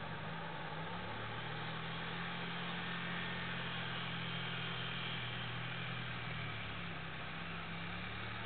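ATV engines running as two four-wheelers ride. The engine note rises about a second in and dips briefly near the end.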